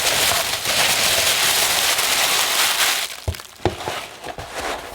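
Paper and packaging being handled, a loud crinkling rustle for about three seconds, then a few light knocks as items are set down.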